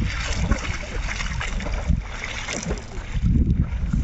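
A swimmer's arm strokes splashing in open water, uneven and repeated, with wind rumbling on the microphone.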